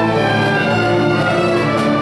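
High school symphonic orchestra of strings and brass playing, holding full sustained chords at a steady loudness.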